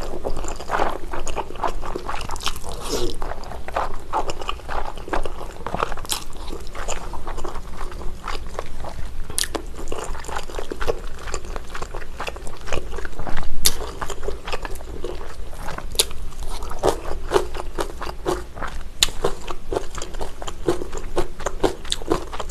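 Close-miked eating sounds: wet slurping and chewing of flat glass noodles and rice cakes in thick jjajang sauce, and biting and chewing napa cabbage kimchi, with many small mouth clicks. The loudest bite comes a little past halfway.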